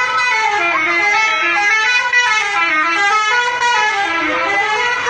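A bus's 'telolet' horn, a multi-tone musical horn, playing a tune of quickly changing notes.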